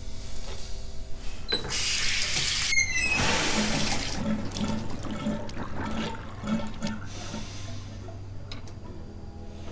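Water running into a bathroom sink and gurgling down the drain, loudest about two to four seconds in, then fading, over a low steady hum.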